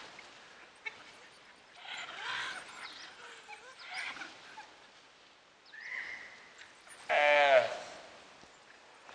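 Gaur calf bawling in distress under attack by dhole: one loud call of about half a second, falling in pitch, comes about seven seconds in, with fainter calls a few seconds earlier.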